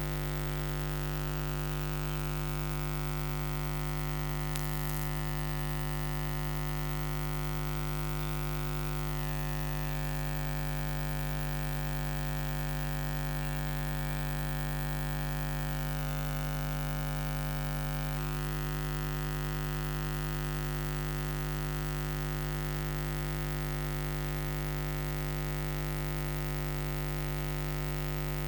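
Steady electrical hum and static: a dense stack of fixed tones over a hiss, with no speech or room sound. It is interference on a faulty audio feed that has no program sound yet.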